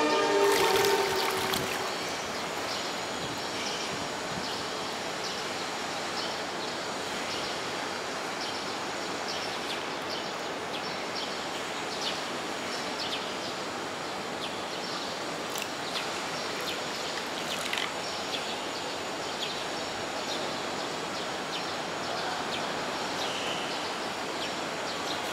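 Steady background noise with many faint, short, high chirps or ticks through it. A pitched tone carried over from before dies away in the first second or two.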